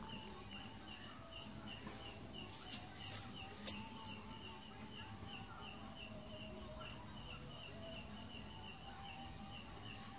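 A high, steady chirp repeating evenly several times a second, like a cricket or small bird, over faint outdoor background noise, with a few sharp clicks about three seconds in.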